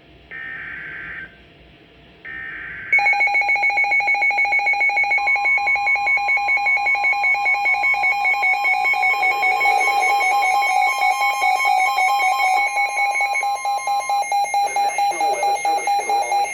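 NOAA Weather Radio warning alert: two short bursts of SAME digital header data, then from about three seconds in the weather radio's loud electronic alarm, a fast-pulsing beeping tone, with the steady 1050 Hz warning alarm tone running under it for about nine seconds. Together they signal that a warning-level alert, here a severe thunderstorm warning, is being received.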